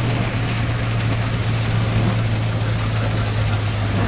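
Engine running steadily, a constant low hum under an even rushing noise.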